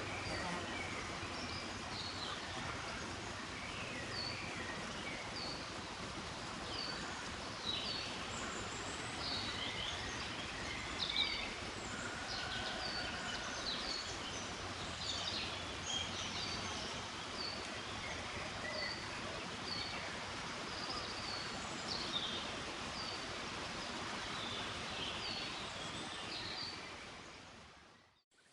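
Small birds chirping over a steady outdoor background hiss, many short high chirps scattered throughout; it all fades out near the end.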